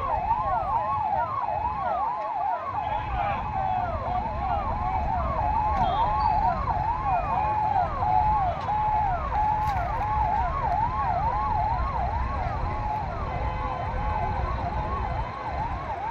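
Sirens on convoy vehicles sounding together in fast, overlapping rising-and-falling yelps, at times holding a steady tone, over the low rumble of passing vehicles.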